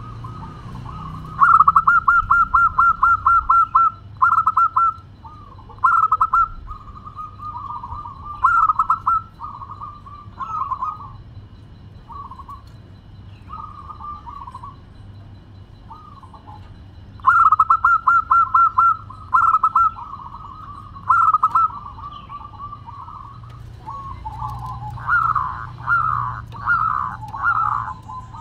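Zebra dove (perkutut) cooing in bursts of rapid staccato notes. There is a long run about a second in and another just past the middle, shorter phrases in between, and louder, wavering coos near the end.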